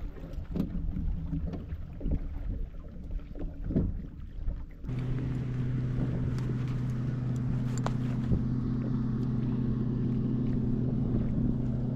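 Wind and water slapping around a bass boat with scattered small clicks, then starting suddenly about five seconds in, a steady low motor hum at an unchanging pitch under wind noise.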